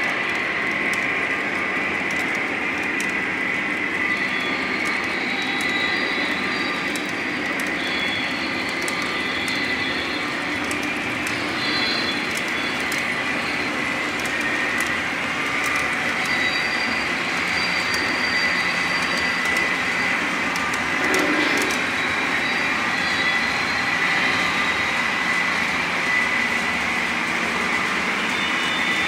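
Sound-equipped model train running on a shelf layout: a steady rolling rumble from the locomotives' onboard sound and the wheels on the track, with a constant high whine.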